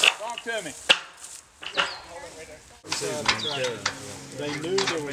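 A work crew handling a steel guardrail beam: rustling and scuffing, a sharp knock about a second in, and indistinct voices murmuring in the second half.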